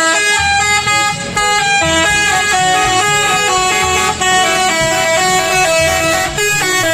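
Bus telolet basuri horn playing a quick melody of stepping notes.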